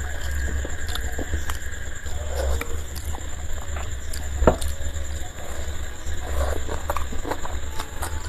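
Close-up eating sounds: chewing and fingers mixing luchi and ghugni on a plate, a run of small wet clicks and ticks with one sharper click about halfway through. A steady low hum and a faint high whine run underneath.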